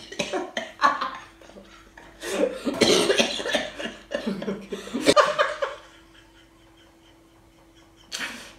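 Two women laughing hard: one stifles her laughter behind a hand over her mouth, coming out in cough-like bursts, while the other laughs along. The laughter dies down after about six seconds, with one last short burst near the end.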